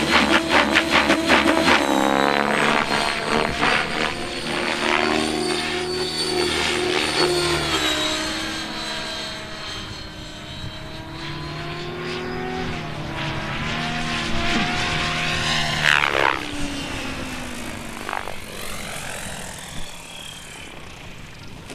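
Battery-electric radio-controlled helicopter flying aerobatics: the motor and rotor whine keeps rising and falling in pitch with the manoeuvres, with a quick sweep up and down in pitch as it passes close about three-quarters of the way through. It grows quieter near the end as it comes down.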